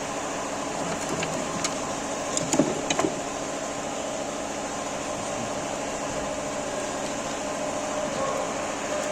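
Hyundai Solaris engine running steadily, with a few sharp clicks about one to three seconds in; the engine is being checked for a knock.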